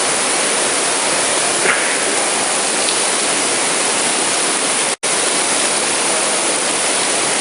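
Artificial rain from an indoor rain installation pouring down in a dense, steady hiss of falling water. The sound drops out completely for an instant about two-thirds of the way through.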